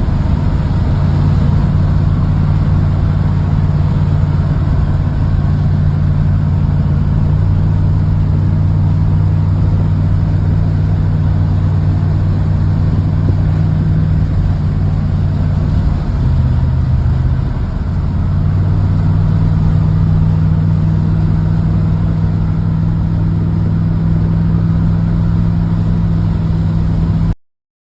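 Motor vehicle engine running steadily under way, a constant low drone. About 16 seconds in its pitch drops for a second or two, then comes back up; the sound cuts off suddenly near the end.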